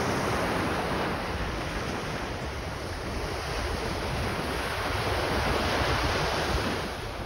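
Surf washing on a sandy beach, a steady rush that swells and eases gently, with wind buffeting the microphone.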